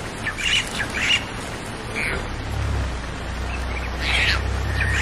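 Leopard cubs chirping: about four short, high calls spread through a few seconds, the cubs calling out to their mother, with a low steady hum underneath.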